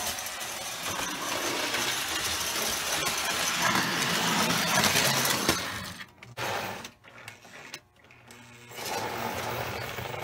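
Lionel Red Comet locomotive's electric motor running along tinplate track, a steady mechanical whir with gear and wheel clatter. The motor is on its rebuilt drive wheels, turned down on a lathe to save them from zinc pest damage. The sound falls away abruptly for about three seconds around six seconds in, then the running picks up again.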